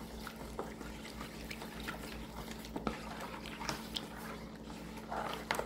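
Plastic spoon stirring grated bar soap into hot water in a plastic basin to dissolve it: faint sloshing with light, scattered clicks of the spoon against the basin.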